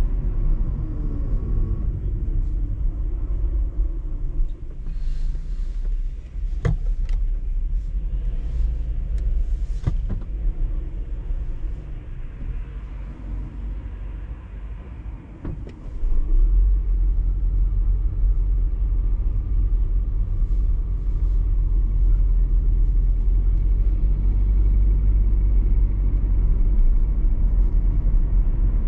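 Car driving through city streets: a steady low rumble of engine and tyres, with a falling engine note near the start and a couple of sharp knocks around a third of the way through. It grows quieter in the middle, then suddenly gets louder and heavier at about the halfway mark.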